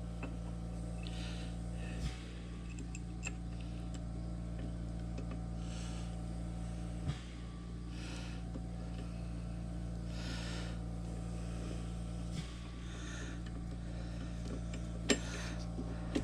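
A few light clicks of small metal parts being handled, as the cutter-wheel cover goes back onto a Framon 2 key machine, over a steady low hum.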